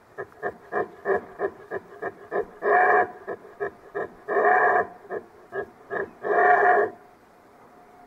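Wapiti bull calling: a rapid run of short grunts, about three a second, broken by three longer, louder calls roughly two seconds apart, then stopping shortly before the end.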